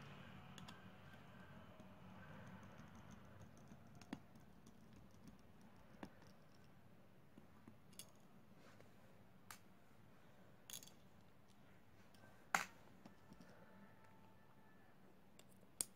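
Faint, scattered clicks and taps over near silence, the sharpest about twelve and a half seconds in: small repair tools and parts handled while a smartphone is taken apart.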